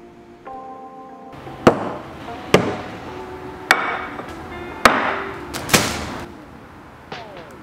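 Background music with held notes, over five sharp knocks about a second apart as plates of food and a bag of bread are set down on a wooden table.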